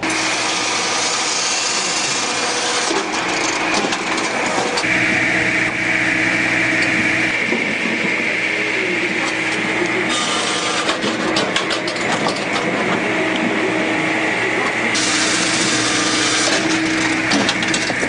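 Firewood processor at work, a combined machine that saws, splits and conveys logs: a steady mechanical drone with a loud, harsh sawing noise that strengthens and eases every few seconds as logs are cut.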